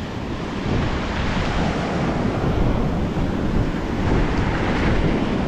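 Waves breaking and surf washing up over the sand, a steady rushing noise, with wind rumbling on the microphone.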